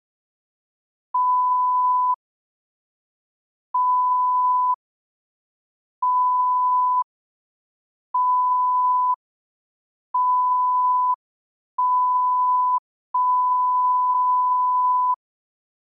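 Electronic beep tone, a single steady pure pitch, sounding seven times for about a second each. The gaps between beeps shorten as it goes, and the last beep holds for about two seconds.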